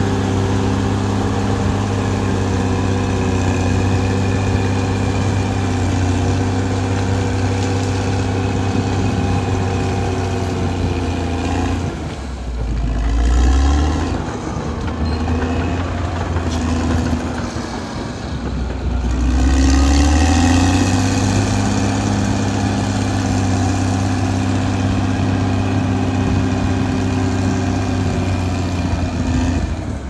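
Caterpillar D6R XL bulldozer's diesel engine running steadily. Its note sags and climbs back up about twelve seconds in, again around eighteen to twenty seconds, and briefly near the end, as the load on it changes.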